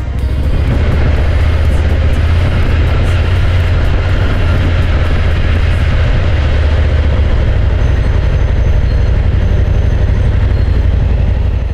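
KTM 890 Adventure R's parallel-twin engine running steadily while riding slowly, with dense low rumble from the bike and road on the onboard camera microphone.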